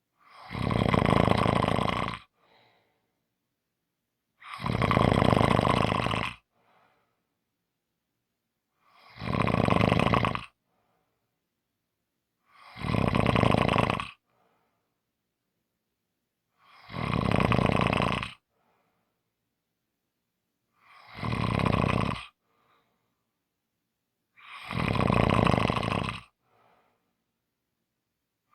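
Snoring in a slow, even rhythm: seven snores about four seconds apart, each lasting under two seconds, with silence between breaths.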